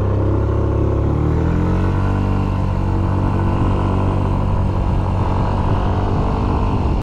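Yamaha Smax 155cc single-cylinder scooter engine picking up revs for about two seconds, then running steadily under way.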